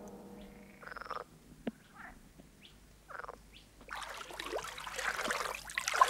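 Frogs croaking: a few separate croaks, then a dense chorus of croaking sets in about four seconds in.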